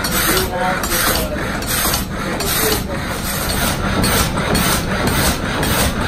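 Water-powered up-and-down sawmill running: the reciprocating saw and its drive gearing knock and rasp in a quick, even rhythm.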